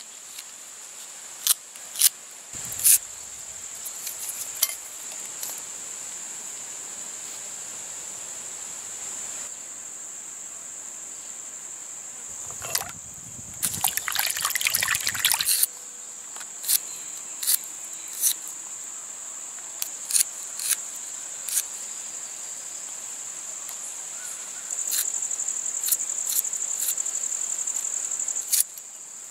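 Insects chirring steadily in a continuous high buzz, a little louder near the end. About halfway through, hands splash and swish in a basin of water for a second or two. Scattered sharp clicks and taps from handling the work come and go.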